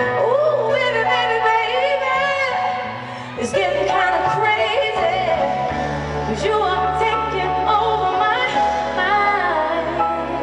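A woman singing live at a Yamaha grand piano, her voice gliding and wavering over sustained piano chords, amplified through an arena sound system. The singing breaks briefly about three seconds in before the next phrase.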